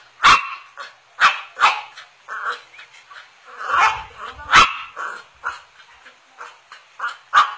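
Cocker spaniel barking again and again in short, sharp barks at uneven intervals: demand barking for a Yakult bottle held just out of its reach.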